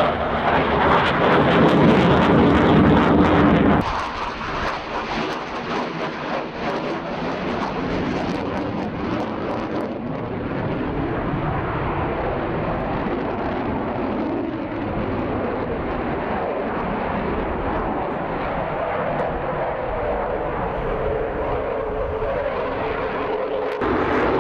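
Dassault Rafale fighter's twin M88 turbofan engines heard in a flyby as a broad rushing jet noise, loudest in the first four seconds. The sound changes abruptly about four and ten seconds in and again near the end, where separate clips are joined.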